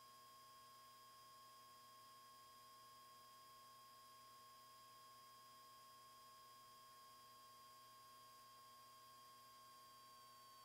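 Near silence: only a faint steady electrical hum of a few thin high tones, with nothing else sounding.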